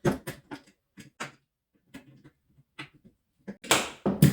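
Irregular clicks and knocks of a pole saw's chain, bar and fixing screw being handled and fitted together, with two louder knocks near the end.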